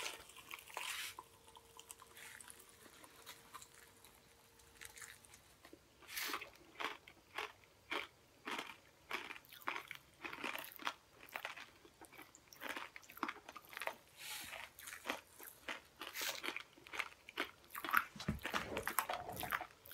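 Mouthfuls of sour Pop Rocks popping candy crackling and crunching as they are chewed: quiet for the first few seconds, then a dense, irregular run of small pops and crunches.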